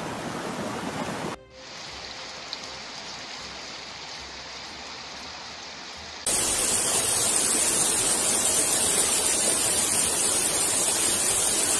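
Rushing floodwater and rain making a steady hiss of moving water, no tones in it. It drops abruptly about a second and a half in, then gets much louder again halfway through, where a brown torrent is in full spate.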